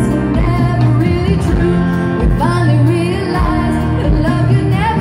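Live band music: a woman singing lead over electric guitar and a backing band.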